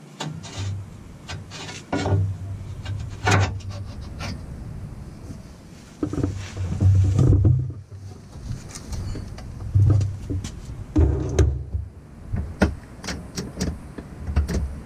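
Irregular clicks, clanks and low thumps of hands-on work on the underside of a Jeep Wrangler TJ, coming in uneven bunches with short pauses between.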